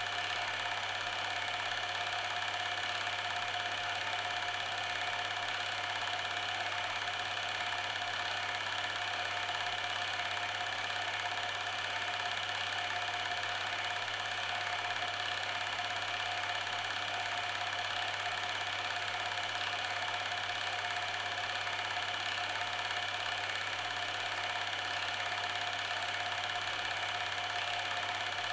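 Steady machine hum, unchanging throughout, made of several fixed tones from low to high over a constant noisy background.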